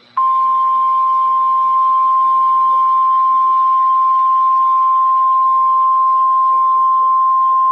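NOAA Weather Radio warning alarm tone: one steady 1050 Hz beep that starts a moment in and holds without a break, over faint radio hiss. The tone signals that a warning bulletin is about to be read.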